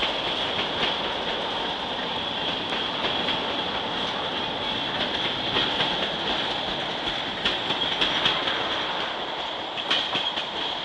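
Freight train of tank cars rolling past: steady rumble of wheels on rail with a continuous high wheel squeal and irregular clicks of wheels over rail joints, a few louder ones in the second half; it cuts off suddenly at the end.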